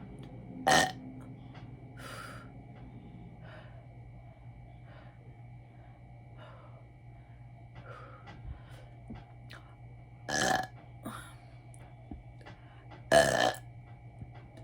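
A woman belching loudly after gulping carbonated soda: one big burp about a second in and two more close together near the end, with a few fainter burps between.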